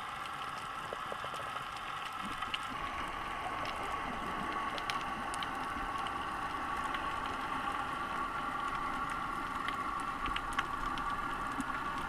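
Underwater ambience heard through a camera's waterproof housing: a steady hiss with many faint scattered clicks. The hiss grows a little stronger about two and a half seconds in.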